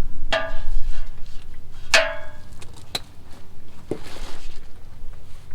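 Metal hand tools clinking against metal: two sharp ringing clinks about a second and a half apart, followed by a couple of lighter knocks.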